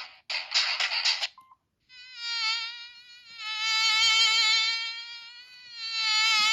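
Samsung SGH-D500 mobile phone playing its built-in tones. A hissy, pulsing tone stops about a second in, a short beep follows, then a buzzy, gently wavering tone swells and fades three times.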